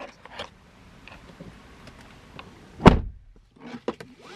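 A car door is shut with one solid thump about three seconds in. A sharp click comes at the start and a few light clicks come near the end.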